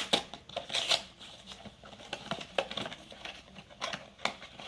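Mystery mini-figure packaging being torn open and handled, a run of irregular crackles, crinkles and small tearing sounds.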